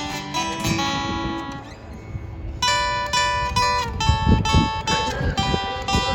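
Live country music: guitar playing the instrumental outro of the song, with picked notes ringing. A brighter run of notes comes in a little under halfway through.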